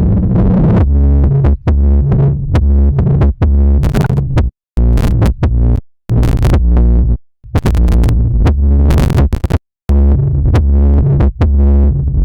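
Electronic music with heavy synthesized bass and a drum-machine beat, cutting to silence for moments several times.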